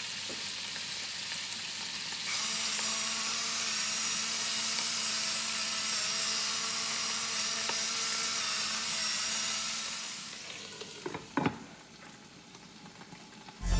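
Onion, green bell pepper, zucchini and mushrooms sizzling in hot olive oil in a frying pan. About eleven seconds in, a glass lid is set on the pan with a few clinks, and the sizzling turns to a faint, muffled hiss.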